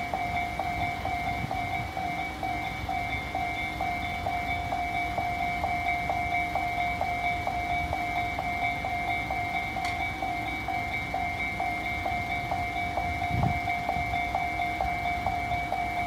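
Electronic railway crossing bell ringing steadily at about two dings a second, with a Tobu Tojo Line-type tone.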